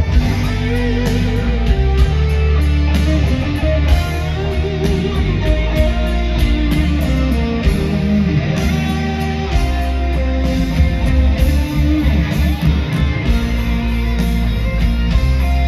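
Heavy metal band's power ballad played live through a stadium PA, with no singing: a lead electric guitar melody with wavering vibrato notes over bass guitar and drums.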